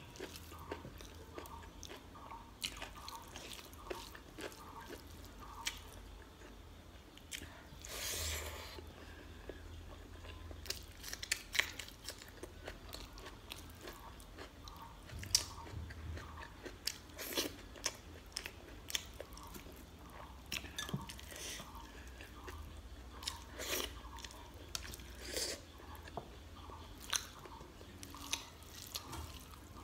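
Close-up eating sounds: chewing and wet mouth clicks and smacks from a mouthful of rice and chicken curry. Fingers mix the rice and gravy on a steel plate.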